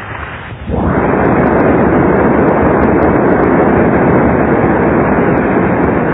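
Audience applauding: it breaks out abruptly under a second in and goes on steadily at full strength.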